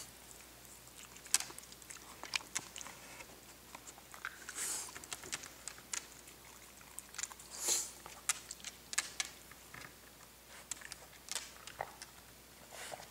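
Xoloitzcuintli eating chopped food from a bowl: irregular chewing and licking, with scattered sharp clicks. The dog has only four fangs and no other teeth, so the food is soft and pre-chopped.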